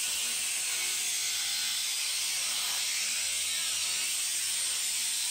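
Angle grinder cutting into the steel frame of a bus bench seat, a steady, even, high-pitched grinding hiss.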